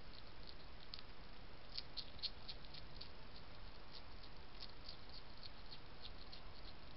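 European hedgehog crunching dry kitten biscuits from a bowl: a rapid, irregular run of small crisp crunches, several a second, loudest about two seconds in.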